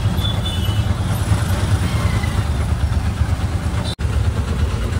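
A motor vehicle on the move: a steady low engine and road rumble, with a split-second break in the sound about four seconds in.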